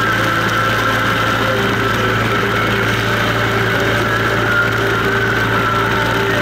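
Indian Chieftain motorcycle's V-twin engine running steadily at highway cruising speed, with wind rushing over the bike-mounted microphone.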